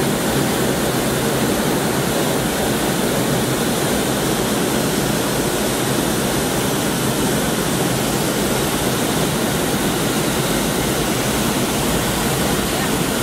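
Steady, even rushing cabin noise inside a McDonnell Douglas MD-80 airliner in flight: airflow over the fuselage blended with its tail-mounted jet engines.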